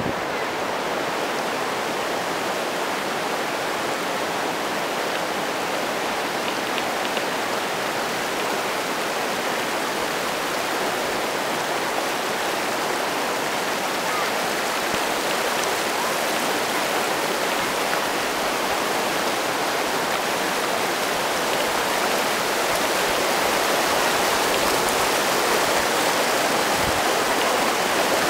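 Glacial meltwater stream rushing steadily over boulders, a little louder near the end.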